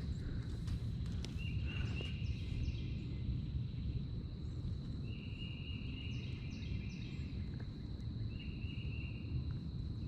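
Outdoor lakeside ambience: a steady low rumble of wind or water noise on the microphone, with a bird repeating the same short song phrase three times, about every three and a half seconds, over a thin steady high tone.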